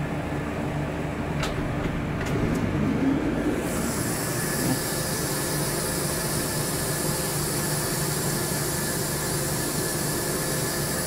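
Spinner U-620 CNC machining center running, a steady mechanical hum with several fixed tones and a few sharp ticks in the first three seconds. Nearly four seconds in, a high steady hiss switches on and continues.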